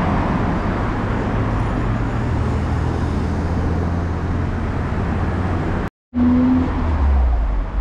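Street traffic: a motor vehicle's engine running close by, a low steady hum over road noise, broken by a brief dropout about six seconds in.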